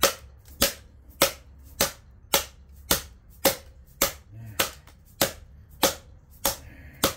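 Steady, evenly paced hammer blows, about thirteen strikes at a little under two a second, as a transformer is beaten apart for scrap.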